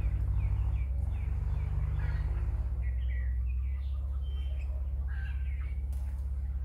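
Flock of broiler chickens peeping with many short, falling calls, over a steady low hum.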